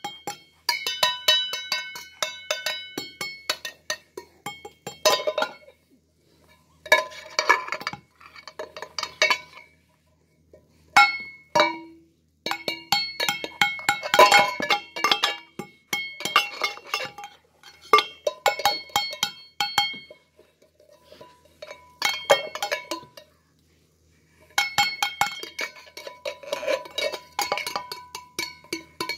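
Upturned hammered-aluminium cooking pots beaten with spoons and hands as makeshift drums. Irregular runs of quick taps ring bright and metallic, broken by a few short pauses.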